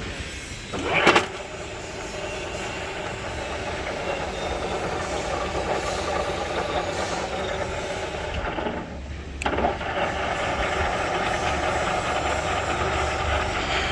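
TOS FGU 32 horizontal milling machine running, its motor and gear train giving a steady mechanical hum. A sharp clunk comes about a second in, and the running sound dips briefly before a second clunk about nine seconds in.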